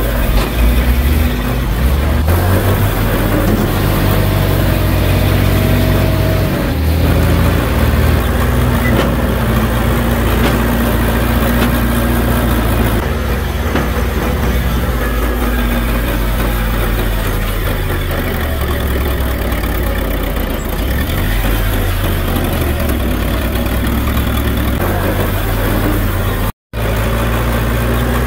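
Small old Furukawa crawler bulldozer's diesel engine running steadily under load as it pushes soil, the engine note shifting now and then. The sound drops out for a split second near the end.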